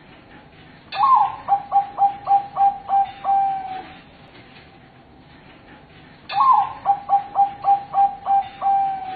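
Perkutut bangkok, a song-bred zebra dove, singing twice: each song opens with a sharp upward note, then runs into about eight short, evenly spaced coos and ends on a longer held coo.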